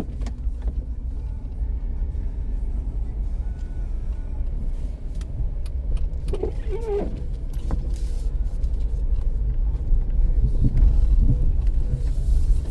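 Steady low rumble of a 2005 Dodge Caravan minivan driving through snow, heard from inside the cabin, with scattered light knocks and clicks; the rumble grows louder near the end.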